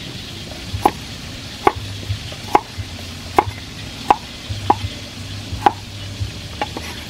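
Heavy cleaver chopping on a round wooden chopping block: about seven sharp knocks, roughly one a second, with a few lighter taps near the end.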